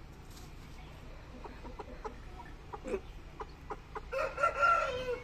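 Aseel rooster clucking: a few short, spaced clucks, then a louder, quick run of clucks lasting about a second near the end.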